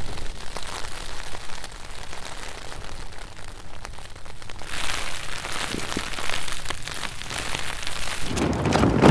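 Rain falling on a tarp and bivvy bag, with many small drop ticks. About five seconds in the rain grows louder, and near the end a gust of wind rumbles across the microphone.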